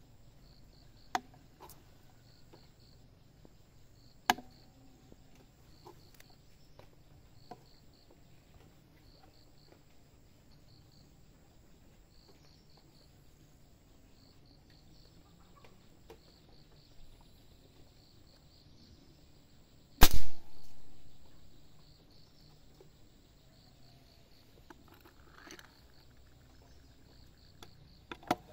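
A single shot from a silenced air rifle about two-thirds of the way through, by far the loudest sound, with a short decaying tail: a test shot while sighting in the scope. A few sharp clicks from handling the rifle come before it and near the end, over faint, steady insect chirping.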